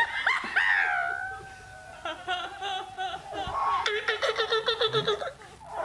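Women laughing hard: a high squealing laugh at first, then a rapid run of ha-ha laughs from about two seconds in.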